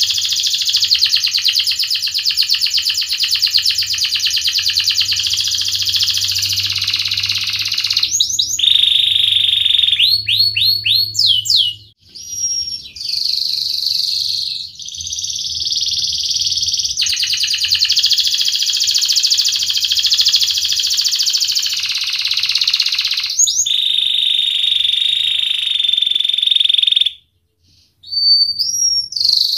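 Domestic canary singing long, rapid rolling trills (the 'ngerek' style), broken around a third of the way in by a run of short rising whistled notes, and by a brief pause near the end.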